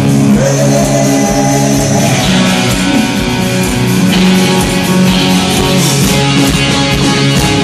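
Rock band playing live and loud, led by an electric guitar played through Marshall amplifiers, over bass and drums, heard through the hall's PA from the audience.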